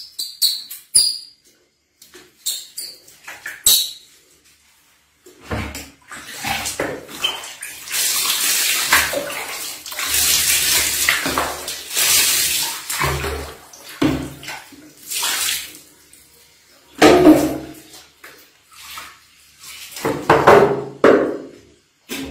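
Water poured from a plastic dipper splashes over a baby monkey and into a plastic basin of water for several seconds. Near the end, water sloshes around the basin in short bursts.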